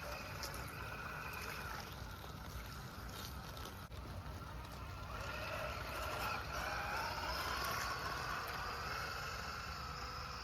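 Small electric motor and gearbox of an RC rock crawler whining under throttle, the pitch rising about halfway through as it speeds up, over a steady low rumble.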